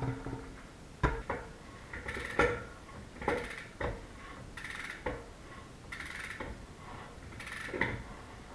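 Irregular metallic clinks and clicks, about a dozen, some with a short ring, as a bicycle cassette and hub parts are handled and fitted to thread a ring into a fat bike hub.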